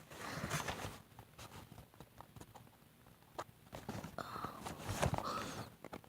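Toy box packaging being handled and worked open by hand: soft rustling with scattered light clicks and taps at irregular intervals.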